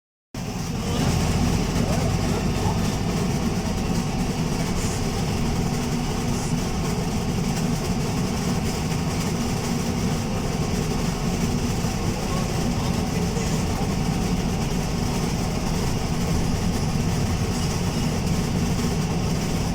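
Alexander Dennis Enviro200 MMC single-deck bus running, with a loud, steady low rumble.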